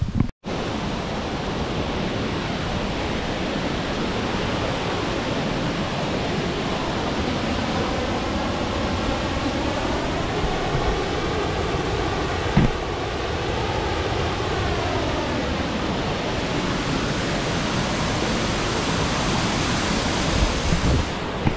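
Waterfall and rapids on the Gooseberry River rushing: a steady, loud wash of water noise.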